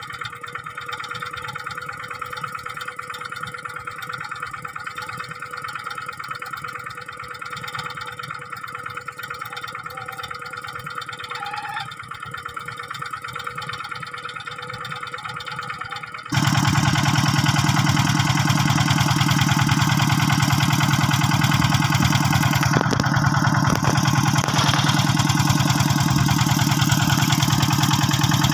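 Single-cylinder diesel engine of a two-wheel hand tractor running steadily. A little over halfway through it abruptly becomes much louder and deeper.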